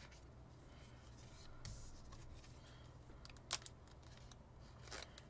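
Faint rustling and small clicks of trading cards being handled and slid into plastic card sleeves, with one sharper click about three and a half seconds in.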